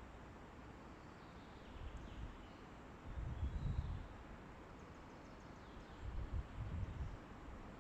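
Wind in a forest: a steady hiss with low rumbling gusts on the microphone about two seconds in, from three to four seconds, and again near the end, with faint bird chirps.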